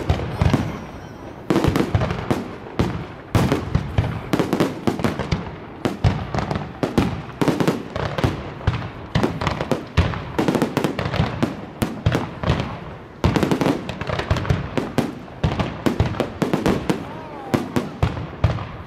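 Fireworks display: a rapid, irregular barrage of bangs and crackles from aerial shells, with a brief rising whistle near the end, and crowd voices underneath.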